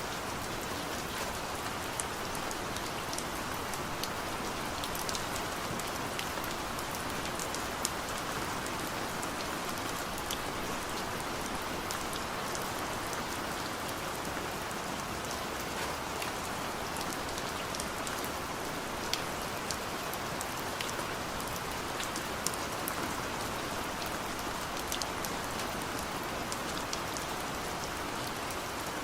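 Steady rainfall: an even hiss of rain with many sharp drop ticks scattered through it.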